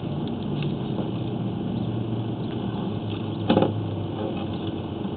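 A steady low mechanical hum, with a single brief knock about three and a half seconds in.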